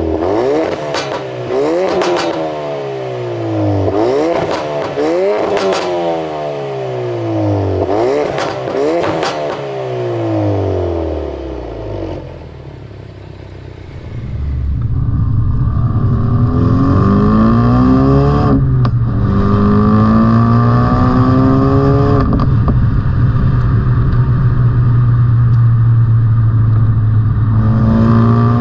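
Ford Focus RS's 2.3-litre turbocharged four-cylinder engine, its pitch swinging up and down about every two seconds with sharp cracks among the revs. After a brief lull about halfway in, it settles into a louder, steady drone with a held high whine on top.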